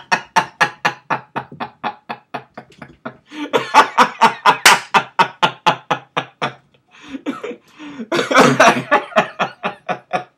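People laughing hard: rapid, evenly spaced 'ha-ha' pulses, about four or five a second, in three long bouts broken by short pauses about three and seven seconds in.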